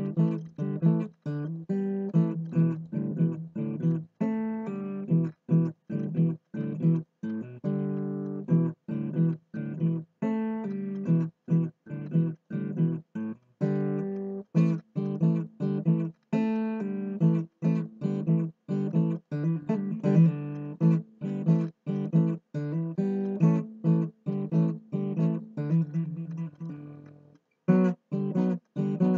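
Acoustic guitar music: picked and strummed notes at a steady pulse, briefly dropping out near the end.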